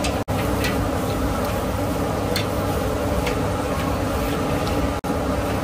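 Puris deep-frying in hot oil in a steel kadai, sizzling over a steady low roar from the gas burner beneath. The sound drops out briefly twice.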